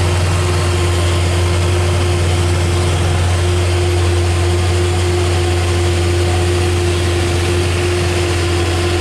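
Diesel engine of a heavy truck loaded with tens of tons of coal, running loud and steady under load as it climbs a steep hill, a constant low drone with no change in pitch.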